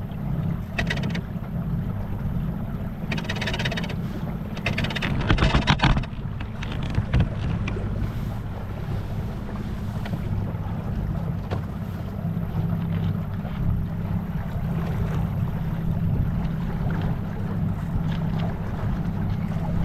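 Water washing along the hull of a small one-man boat as it moves across the river, with wind on the microphone. A few brief louder splashes or knocks come between about one and six seconds in.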